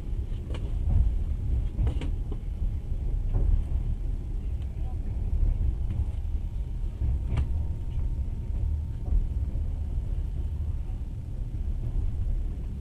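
Passenger train carriage rolling along the track, heard from inside: a steady low rumble with a few sharp knocks.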